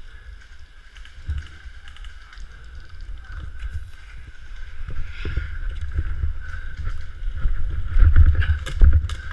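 Rumbling wind and handling noise on a GoPro's microphone, growing louder, with a few sharp clicks near the end.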